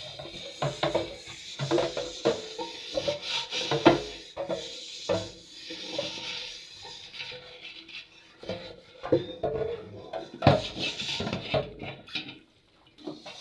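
Kitchen handling noise: pots and utensils knocking and clinking irregularly, with scraping and rubbing in between.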